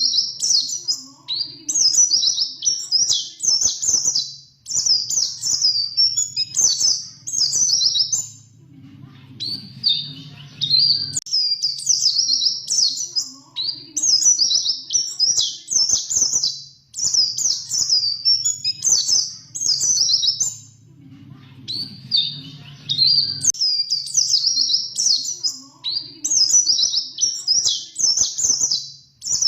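A white-eye (pleci) singing in full voice: quick, high warbling trill phrases in rapid runs, with rolling passages and sharp piercing notes (what keepers call 'ngerol' and 'nembak'). The song breaks off into two pauses of two or three seconds, and a faint low hum runs underneath.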